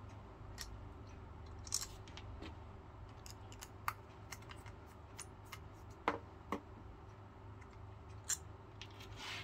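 Small scattered clicks, taps and scrapes of a plastic circuit-breaker case being handled and pried apart, with a screwdriver working at its screws. Five or six sharper clicks stand out, and a short scrape comes near the end.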